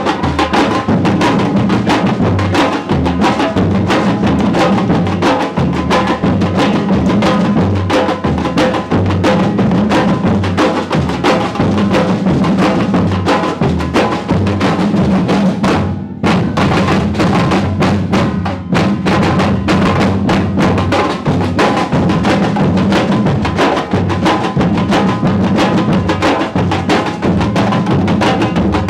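Percussion music, with drums struck in a steady, continuous rhythm and a brief drop about halfway through.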